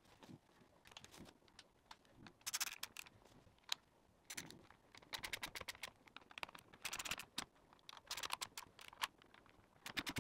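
Ratchet screwdriver clicking in short rapid runs, about six of them, as screws are driven into a steering wheel's hub.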